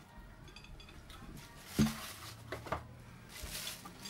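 Parts of a DSLR shoulder rig being unpacked from a cardboard box: plastic wrapping rustles and handled parts clatter, with a sharp knock about two seconds in and a lighter one shortly after.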